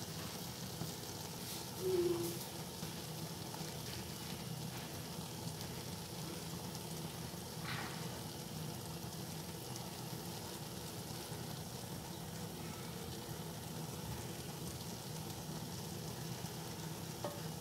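Steady low sizzle from a pot of sweet rice cooking on the stove, its water cooked off. A brief short tone sounds about two seconds in.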